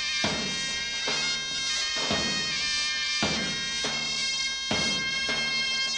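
Folk music on a droning reed pipe, a steady held drone under a higher melody, with a drum struck about once a second.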